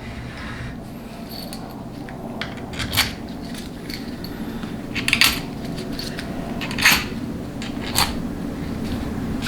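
Small steel bolts clinking and tapping against metal as they are handled and set into the bolt holes of a transmission valve body, with four sharper clinks, over a steady low hum.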